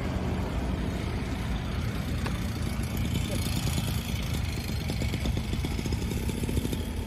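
A vehicle engine idling steadily, with a fast, even throb, and voices in the background.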